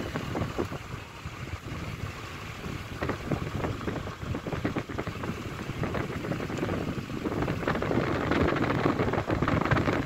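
Wind buffeting the microphone at an open car window, over the rumble of the car driving along the road; it gets louder near the end.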